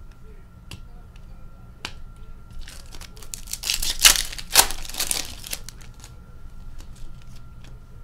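A hockey card pack wrapper crinkling and tearing for about two seconds midway, among light clicks and taps of cards being handled.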